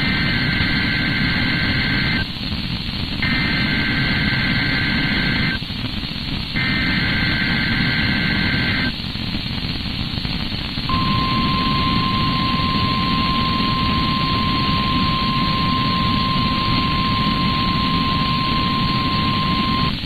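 NOAA Weather Radio broadcast of an Emergency Alert System activation, through heavy radio static. First come three SAME digital header bursts, each about two seconds long with a second's gap between them. About eleven seconds in, a steady 1050 Hz warning alarm tone starts and is held for about nine seconds; it signals that a warning, here a winter storm warning, is being issued.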